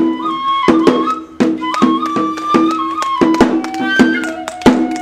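Kagura hayashi: a Japanese bamboo transverse flute (fue) plays a held, sliding melody over steady taiko drum strikes, about two to three a second. In the last second or two the flute steps down to lower notes.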